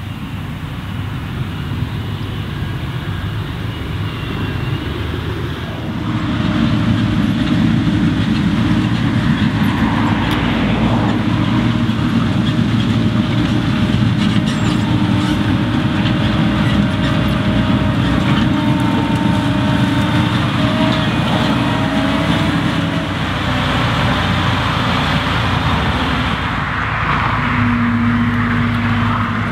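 Ropa Panther self-propelled sugar beet harvester at work: its diesel engine running steadily under the clatter of the lifting and cleaning gear, growing louder about six seconds in.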